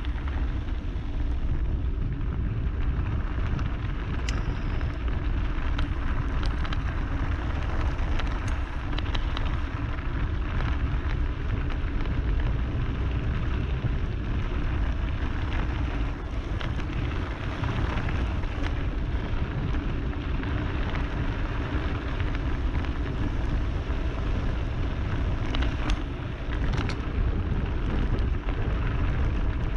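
Wind rushing over the camera's microphone on a fast mountain-bike descent, over the steady crunch and hiss of knobby tyres rolling on loose gravel. A few sharp clicks and rattles come from stones and the bike's frame, two of them near the end.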